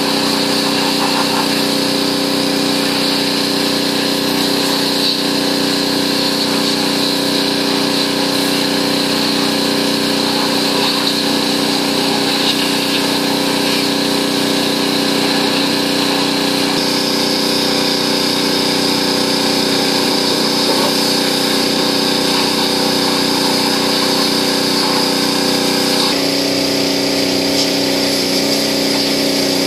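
Gas-engine pressure washer running steadily, its engine hum and high pump whine constant, with a slight shift in tone partway through and again near the end.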